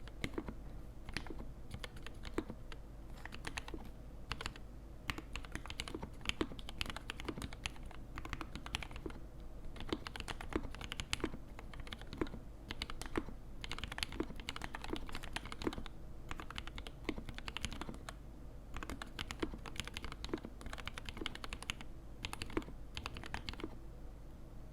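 Continuous typing on a custom E6-V2 mechanical keyboard with a brass plate, mixed switches and GMK keycaps: a dense, uneven run of key clicks. A steady low hum of background noise sits underneath.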